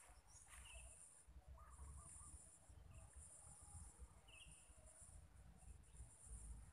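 Faint outdoor ambience of insects trilling high and steady, breaking off and resuming every second or so, with a few short bird chirps over it.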